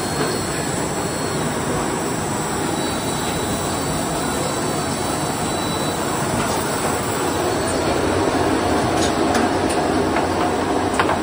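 Automatic rigid box making line running: a steady mechanical noise of conveyors and rollers, with a few sharp clicks near the end.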